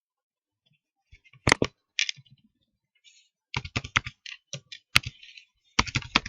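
Computer keyboard typing in short runs of keystrokes, starting about a second in, with a few sharper clicks among them.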